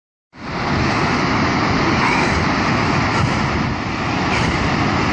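Tsunami surge of seawater rushing over a rocky shore, a loud steady rushing roar that cuts in abruptly a moment in.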